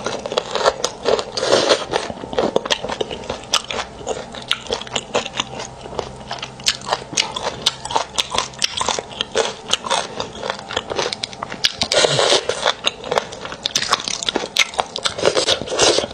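Close-miked eating of braised beef bone marrow: wet chewing and lip smacking with many short, sticky mouth clicks, in louder clusters about a second in and again near the end.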